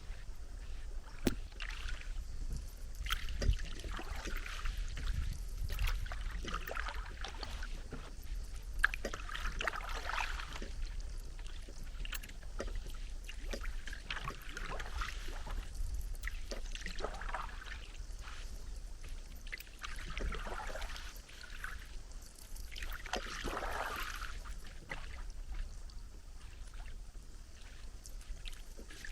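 A paddle dipping and pulling through lake water, with a swishing splash every few seconds.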